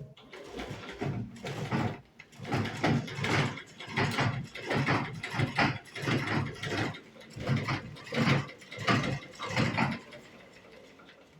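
1928 Singer sewing machine running, its mechanism clattering in a steady rhythm of about one and a half pulses a second, then stopping near the end.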